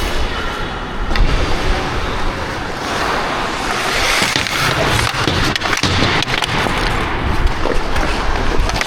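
Hockey skate blades scraping and carving on rink ice, loud and close. A few sharp knocks are heard, about a second in and again around the middle.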